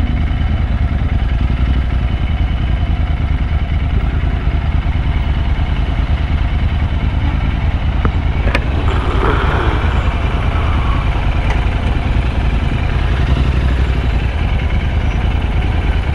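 Royal Enfield Interceptor 650 parallel-twin engine running steadily at low revs.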